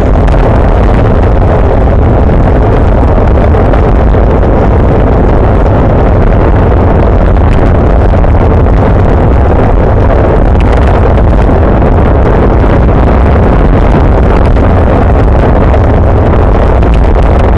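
Loud, steady wind rush buffeting the microphone of a bike-mounted camera while riding at race speed in a group of road cyclists.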